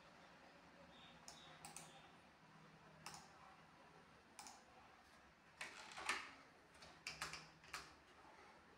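Near silence: quiet room tone with a few faint, irregular clicks, a little stronger about six seconds in.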